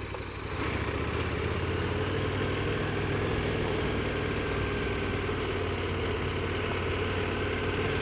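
Adventure motorcycle's engine running at a steady pace, an even hum that holds unchanged throughout.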